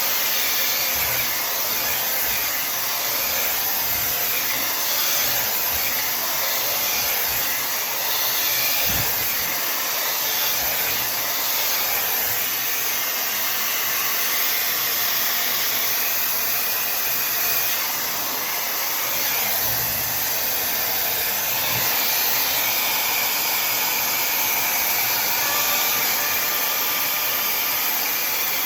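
Tymo Air Hype hair dryer running steadily, a continuous rush of blown air.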